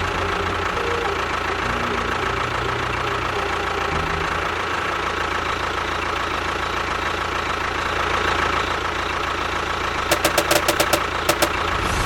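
Small engine running steadily, with a quick series of about eight sharp clicks around ten seconds in.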